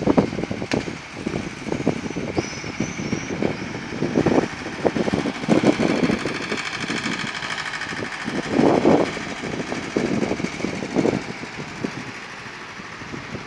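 Inland cargo barge's diesel engine running as the barge passes close by, with irregular low buffeting from wind on the microphone.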